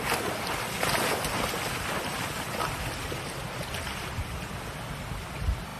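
Water rushing over a flooded weir, with splashing as a large crocodile crawls through it and wind buffeting the microphone. A brief low thump comes near the end.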